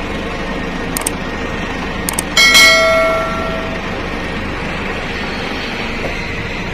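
A single bright bell-like ding about two and a half seconds in, ringing for about a second and a half before fading, over a steady noise. A few sharp clicks come before it.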